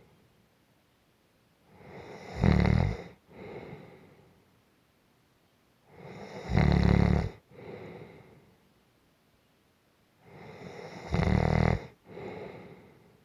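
Gentle snoring in a slow, regular breathing rhythm: three snores about four seconds apart, each a short, loud, low buzz followed by a softer breath, with quiet in between.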